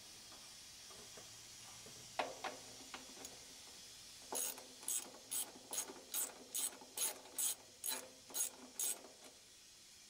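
Socket ratchet wrench clicking as it turns a compressor mounting nut. There are a few clicks about two seconds in, then a run of about a dozen ratcheting strokes, roughly two a second, which stops near the end.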